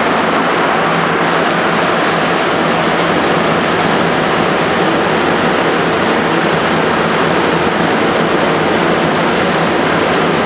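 Montreal Metro MR-73 rubber-tyred subway train running steadily through a tunnel, heard from inside the car: a loud, even rush of running noise with a steady low hum underneath.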